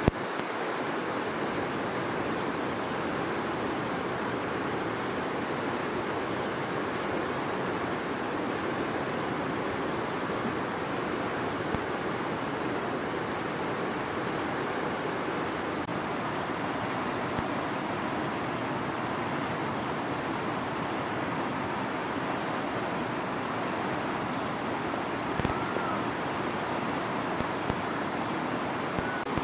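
Insects, crickets or similar, calling in a steady high-pitched pulsing trill, about two to three pulses a second, over the even rush of a flowing river.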